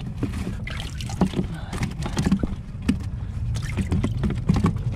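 Water sloshing and splashing in a boat's livewell as a hand moves among the live crappie, with water spraying into the well. A steady low hum runs underneath.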